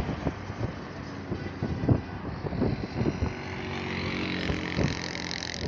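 Highway traffic: an approaching vehicle's engine hum and tyre hiss grow louder in the second half, with wind buffeting the microphone throughout.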